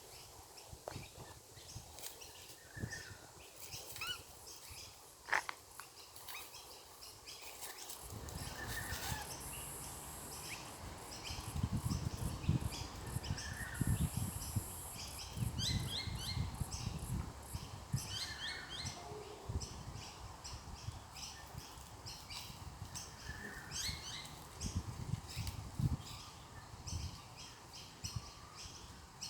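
Small birds chirping in quick repeated series, the calls of songbirds mobbing a turkey. From about eight seconds in there is a low rumbling noise underneath.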